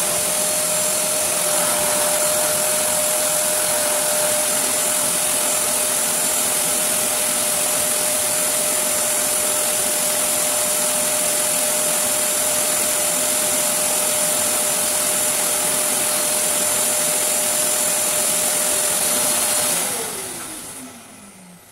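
Toughmaster 1000-watt wet and dry cyclonic vacuum running steadily, a rush of air with a steady whine. Near the end the motor cuts out and winds down with a falling whine: its water-level sensor has stopped it because the bin has reached the full line.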